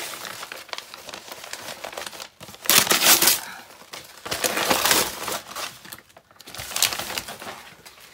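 Printed wrapping paper crinkling and tearing as it is pulled off a taped cardboard box, loud in bursts, loudest about three seconds in.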